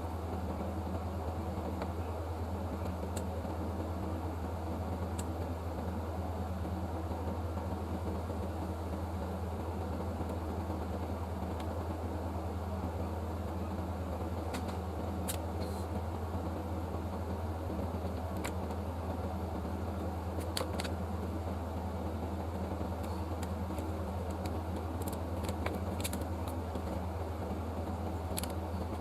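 A steady low mechanical hum, like a small fan or motor running, with a few faint sharp clicks scattered through, more of them in the second half.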